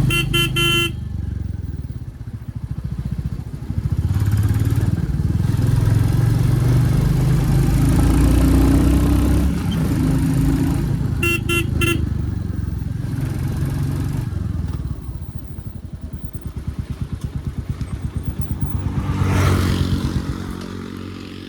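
Royal Enfield Classic 350's 349 cc single-cylinder engine running under way with its steady low thump. A horn gives a few quick beeps at the start and again about eleven seconds in. The sound swells about nineteen seconds in, then fades away near the end.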